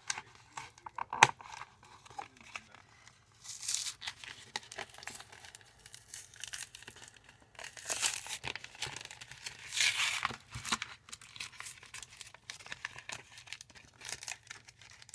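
Foil trading-card booster pack wrapper being crinkled and torn open, in irregular scratchy bursts, with a sharp tap about a second in.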